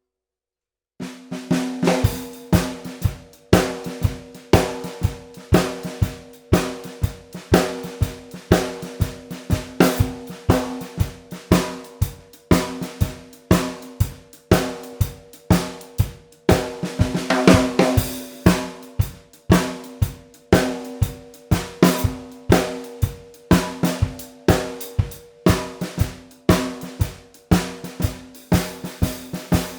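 Pearl Ultracast 14 x 6.5 inch cast-aluminium snare drum being played, dry and unprocessed. Starting about a second in, it plays a steady run of strikes, with a ringing tone under each hit.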